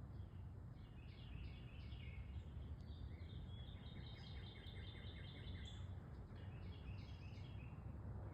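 Faint outdoor birdsong: a bird sings series of quick high chirps and a rapid trill, over a steady deep background rumble.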